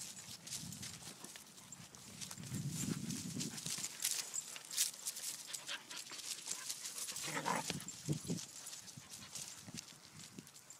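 Pet animals moving about: a steady run of light clicks and taps, with a short, lower, fuller sound about seven and a half seconds in.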